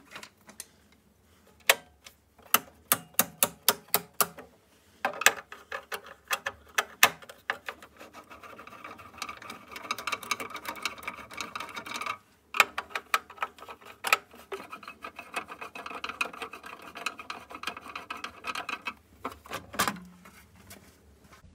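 A hand screwdriver working out the screws of an old Crabtree consumer unit's plastic front cover: a run of quick sharp clicks, then longer stretches of grinding and scraping as the screws turn. Near the end a dull knock as the cover is lifted off.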